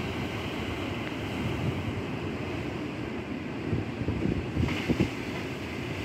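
Sea waves washing steadily, with wind gusting on the microphone in a low rumble; the wash swells briefly near the end.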